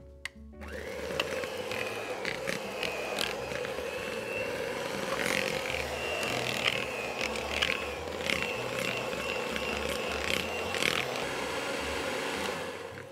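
Kenwood electric stand mixer beating cream cheese frosting: the motor starts about half a second in, runs steadily with a thin whine and scattered clicks, and stops shortly before the end.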